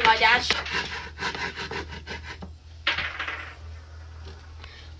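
Spatula scraping and rubbing against a frying pan as dumplings are turned, in short irregular strokes over a steady low hum.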